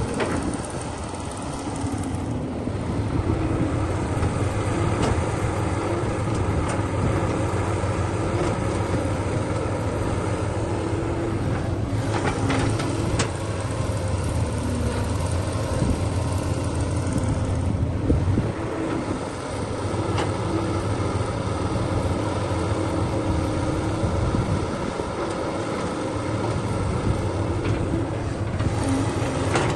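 Heavy machine's engine running steadily, with a few brief knocks about 12 and 18 seconds in.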